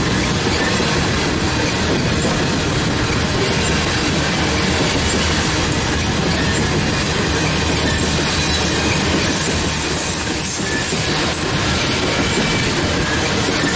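Coal hopper cars of a freight train rolling steadily past at close range: the continuous noise of steel wheels running on the rails.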